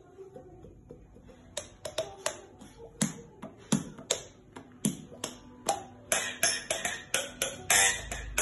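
Sharp percussive hits, a few scattered at first with some deeper thumps among them, quickening into a dense, fast rhythm about six seconds in as music builds.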